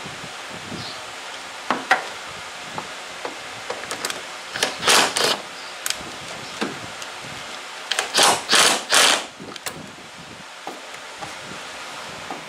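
Scattered clicks and knocks of tools and body parts being handled while the front bumper and grille are refitted to a van. Two short noisy bursts come about five seconds in and three more about eight seconds in.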